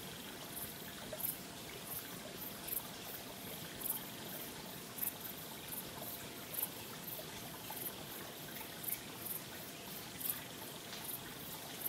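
Faint water trickling and lapping, with small splashes at an irregular pace of about one or two a second.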